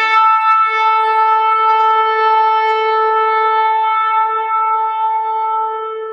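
A shofar (ram's horn) is blown in one long held blast. The note steps up in pitch within the first second, then holds steady with a bright, buzzy tone and slowly weakens toward the end.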